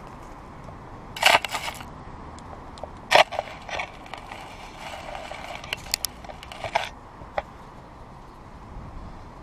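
An eastern gray squirrel scrabbling in crusted snow right at the microphone: a run of sharp crunching scrapes, loudest about a second in and again about three seconds in, over a steady background hum.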